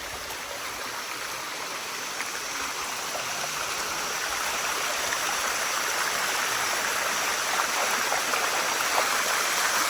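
Water rushing steadily down the Bua Tong Sticky Waterfall's limestone cascade, growing gradually louder.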